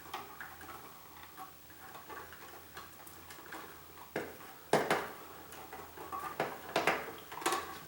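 Electrical wires and wire nuts being bent and pushed by hand into a wall switch box: faint light ticking at first, then a run of sharper clicks and knocks from about four seconds in.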